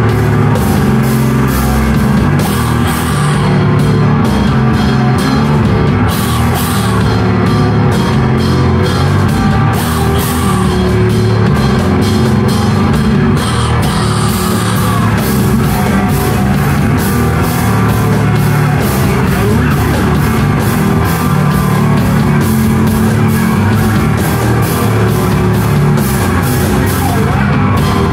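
Live rock band playing loud, with a drum kit beating steadily and cymbals struck on every beat over dense amplified instruments.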